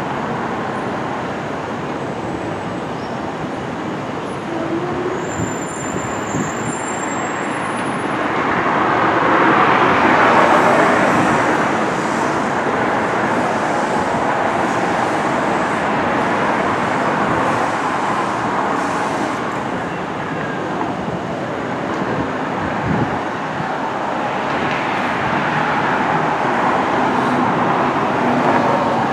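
Steady vehicle noise, swelling about ten seconds in and again near the end as of vehicles passing.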